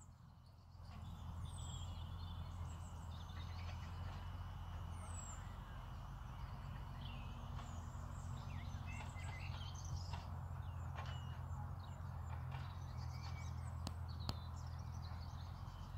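Birds singing in the background, many short high chirps and whistles, over a steady low rumble on the microphone.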